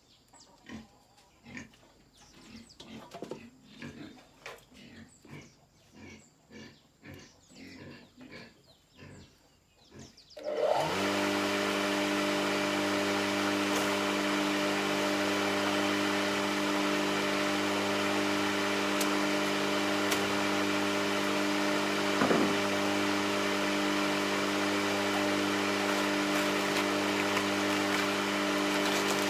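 Faint short pig grunts, then about ten seconds in a motor starts up with a brief rising whine and runs on with a loud, steady hum.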